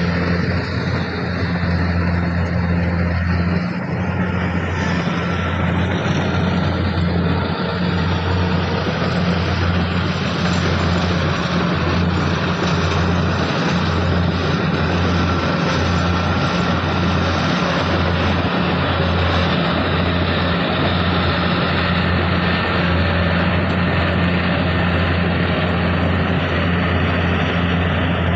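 Kubota combine harvester running steadily under load: a constant low diesel engine hum over a dense mechanical hiss, with no let-up.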